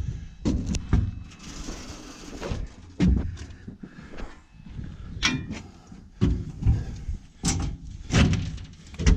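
Irregular knocks, clunks and clicks of hard objects being handled, with a short burst of hiss about two seconds in.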